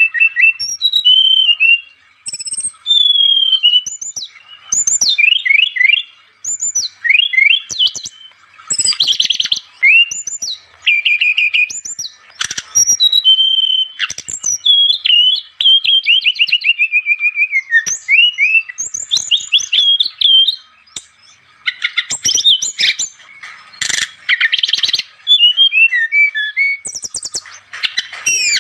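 Small songbirds calling busily: a varied run of chirps, quick trills and whistled up- and down-glides in short bursts with brief pauses. It is a bird-luring (pikat) call recording.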